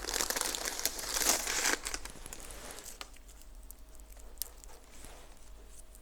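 Crinkling and rustling of small dried flowers being picked out and handled, dense for the first two seconds or so, then thinning to occasional light ticks.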